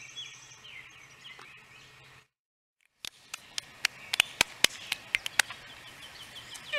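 A quick run of about a dozen sharp hand claps and slaps from two people doing a clapping handshake, starting about three seconds in. Before it, faint birds chirp in the background.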